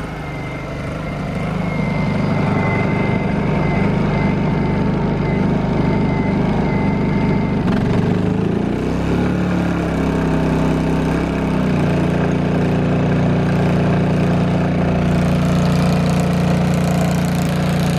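Portable inverter generator engine running steadily with a thin whine over it for the first half. About halfway through its engine note shifts and glides for a few seconds, then settles into a steady, slightly fuller run.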